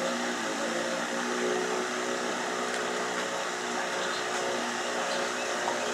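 Steady machine hum: a motor running evenly, a low drone with several steady tones over a faint hiss.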